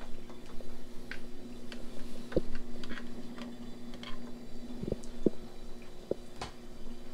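Power cords and plastic equipment being handled and tucked into place, making scattered light clicks, taps and rustles, over a steady low hum.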